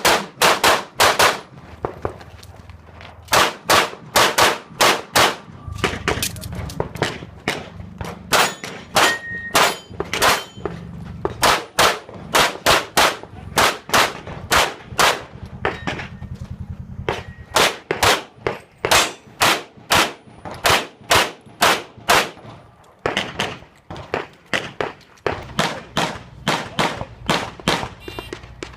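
Handgun fired in rapid strings during a timed match stage: quick runs of sharp shots, several a second, broken by short pauses while the shooter moves or reloads.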